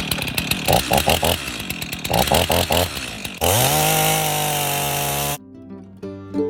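Stihl chainsaw cutting into a fallen tree's trunk, the engine surging unevenly as the chain bites, then revving up to a steady full-throttle note for about two seconds before it cuts off abruptly.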